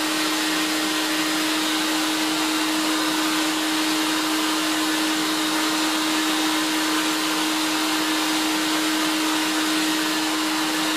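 A carpet-machine shop vac runs at full speed with its exhaust air blowing out through PVC pipe jets. It makes a steady, loud rushing with a constant hum.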